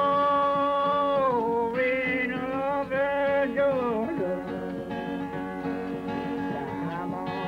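A man singing unaccompanied-style long held notes that bend and slide down in pitch, in old-time Appalachian fashion, over his own acoustic guitar.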